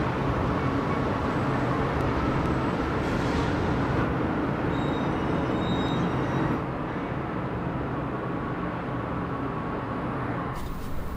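City street traffic: a steady wash of car engines and tyre noise, a little quieter from about two-thirds of the way in.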